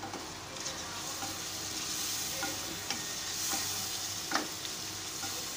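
Boiled beef pieces and spice masala sizzling in oil in a pan while a spoon stirs and scrapes through them, with a few light knocks of the spoon against the pan. This is the bhuna stage, where the meat and masala are fried down.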